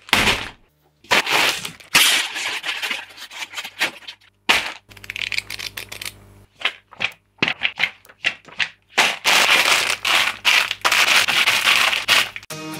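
Clear plastic bags of small plastic building-block parts crinkling and rustling in short, irregular bursts as they are handled, along with the pages of a paper instruction booklet being flicked through. Music starts near the end.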